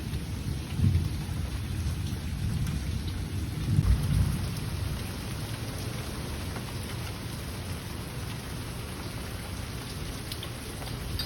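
Steady rain falling, with low rolling thunder that swells about four seconds in and then eases off.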